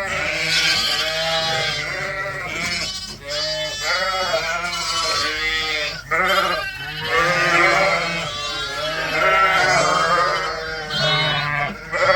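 A flock of sheep, ewes and lambs, bleating, with many calls overlapping one after another without a break.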